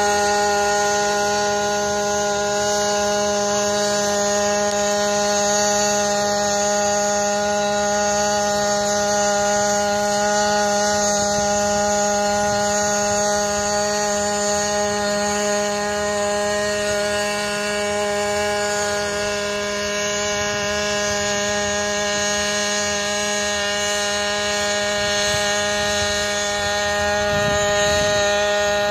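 Eirobotix D130 X4 hybrid quadcopter in flight, its onboard combustion engine and propellers giving a steady hum made of several even, unchanging tones.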